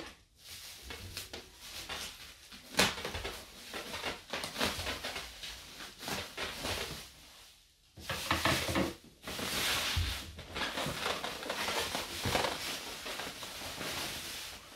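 Bubble wrap and plastic wrapping rustling and crinkling as they are pulled off a box by hand, with a few sharp crackles and a brief lull about halfway through.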